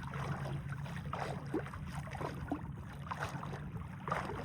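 Open-water flats ambience: a steady low hum with faint, scattered small water splashes and trickles.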